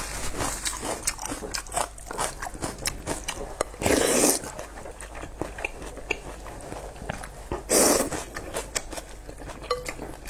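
Close-up eating sounds of a person eating pork noodles: steady chewing with many small wet clicks, and two louder slurps about half a second long, around four and eight seconds in.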